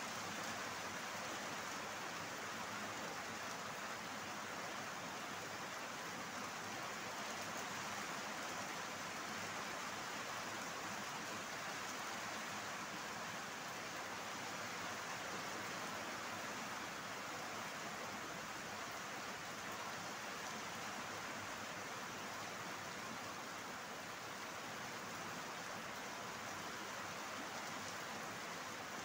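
Steady, even hiss with no distinct events, holding the same level throughout.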